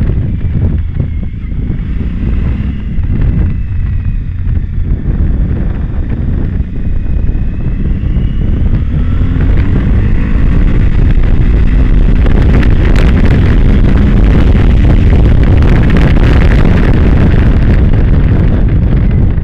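Wind buffeting the microphone of a moving Suzuki V-Strom motorcycle, with the bike's V-twin engine running under it. The wind gets louder from about halfway through as the bike speeds up.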